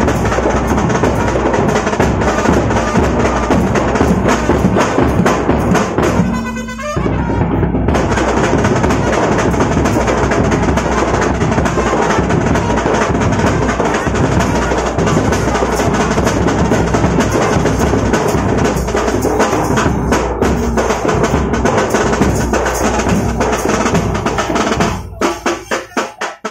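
Live drumming by a group of large hand-held drums, played with sticks in a loud, fast, dense beat for dancing. The drumming breaks off briefly about six seconds in, then ends in a few separate, fading strokes near the end.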